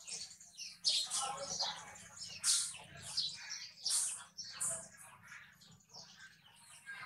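Many small birds chirping busily, with short high calls overlapping one another, over a faint steady low hum.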